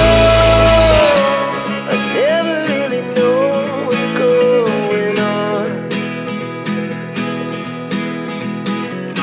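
Background music with guitar and a held, gliding melody line; the deep bass drops out about a second in.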